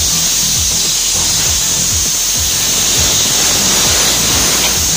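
Compressed air and water hissing steadily out of an air compressor tank's opened drain valve, blowing out the condensed moisture so it does not mix with the air. Background music with a steady beat plays underneath.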